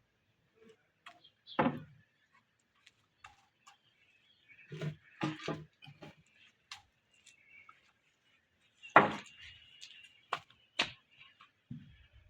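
Irregular knocks and thuds of wooden timber being worked by hand: about a dozen scattered strikes, the loudest about two seconds in and about nine seconds in.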